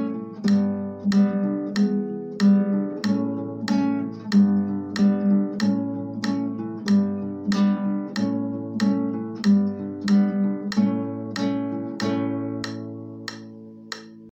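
Acoustic guitar strummed in a steady chord accompaniment, about three strums every two seconds, with the chords changing. A last chord rings and fades out near the end.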